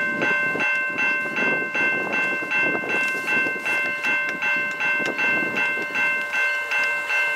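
A railway warning bell ringing steadily at about three strokes a second as a train approaches, with a low rumble underneath.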